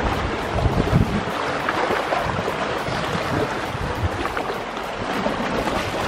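Small lake waves lapping and splashing against flat rock ledges at the shoreline, with wind buffeting the microphone.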